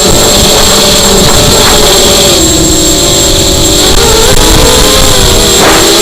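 ZMR250 racing quadcopter's brushless motors whining, their pitch rising and falling as the throttle changes, over a heavy low rush of wind noise.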